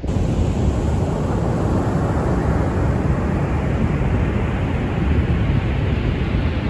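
Ocean surf breaking on a sandy beach, a steady rush with heavy wind rumble on the microphone; the surf swells a little louder about halfway through.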